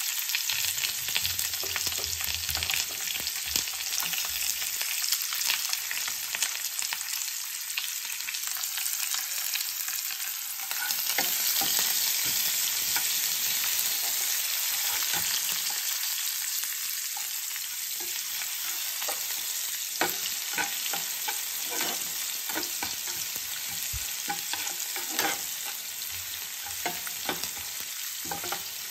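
Finely chopped onion sizzling in hot oil with cumin seeds in a nonstick frying pan: a steady high hiss. A flat spatula stirs and scrapes through it, with short taps and scrapes on the pan, more of them in the second half.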